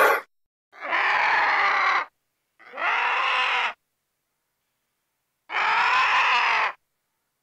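An animal calling three times, each call a little over a second long with a rasping, pitched tone, separated by silent gaps.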